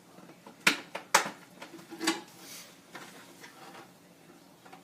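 Small hard clicks and clinks of screws and tools being handled: two sharp clicks about a second in, half a second apart, then a softer knock about two seconds in.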